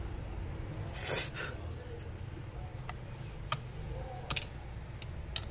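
Small plastic parts of a feature phone being handled and pressed into the back housing: a short rustle about a second in, then a few light, sharp clicks and taps. A steady low hum runs underneath.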